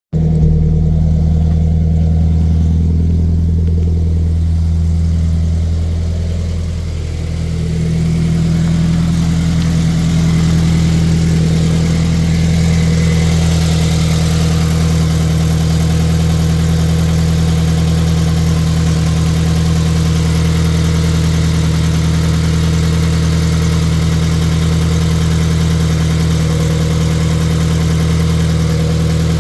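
Scion FR-S's 2.0-litre flat-four boxer engine idling steadily through a newly fitted equal-length exhaust header, run to check the header for exhaust leaks. The sound starts abruptly. It dips slightly about seven seconds in, then holds steady.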